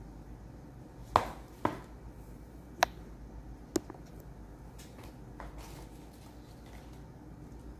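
Four sharp clicks in the first half, the first two the loudest, over a low steady hum.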